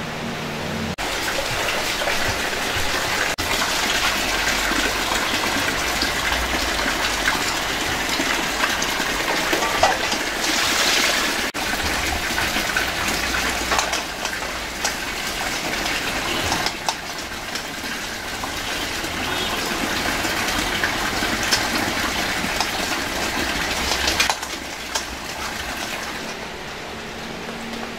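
Steady rushing of water that shifts abruptly a few times.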